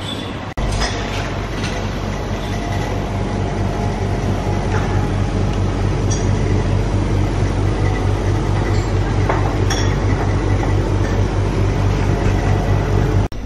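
A loud, steady low rumble with a fast, even throb, starting and stopping abruptly, with a few light clinks of dishes over it.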